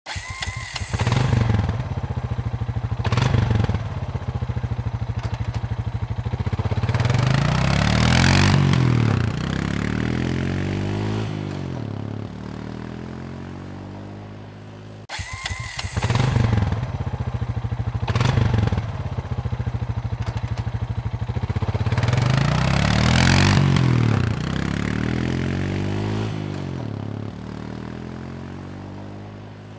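An engine starting and revving, its pitch rising and falling through several revs, then dying away; the same 15-second recording plays twice in a row.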